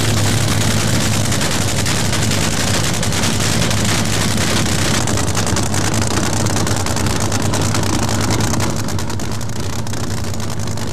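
Drag boat's engine running loudly at a steady speed, with a rough crackle over a constant low drone.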